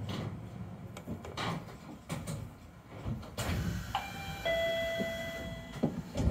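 Monorail car standing at a platform: a sudden hiss of air about three and a half seconds in, then a two-note electronic door chime held for about a second and a half as the doors open, and a thump near the end.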